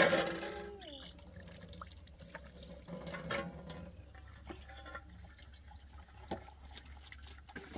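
Tap water running into a sink while raw fish is rinsed and handled, with scattered small clicks and knocks.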